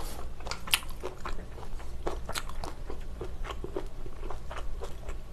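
Close-up eating sounds: biting and chewing into a large piece of bone-in spicy braised pork rib held in the hands, a string of short, irregular sticky clicks.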